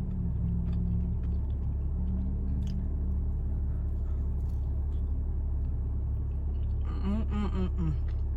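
Someone quietly chewing food over a steady low rumble, with faint clicks of eating, and a brief hummed vocal sound about seven seconds in.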